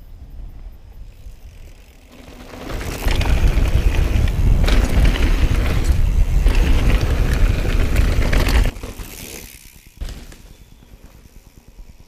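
Giant Trance 2 mountain bike being ridden on a trail: tyre rumble and wind on the microphone. The noise builds, runs loud for about six seconds, then cuts off suddenly, with a quieter stretch after.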